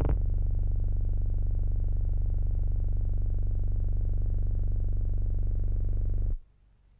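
Steady low drone of piston aircraft engines heard from inside the fuselage, with a fine even pulsing. It cuts off abruptly a little past six seconds in.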